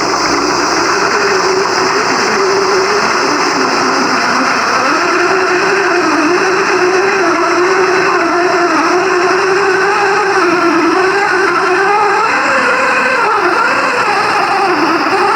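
Simulated car-engine sound from an FMS radio-controlled scale car's sound system, running continuously with its pitch rising and falling as the throttle is worked.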